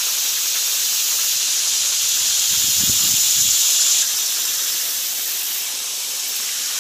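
Chorus of cicadas buzzing in the summer trees, a steady high-pitched drone that swells and then eases off about four seconds in.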